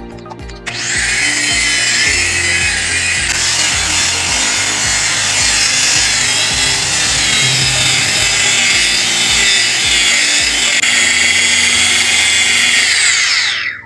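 Handheld electric car polisher with a foam buffing pad running at speed against painted bodywork, a loud steady whir and rub that starts about a second in. Near the end its pitch falls as the motor winds down.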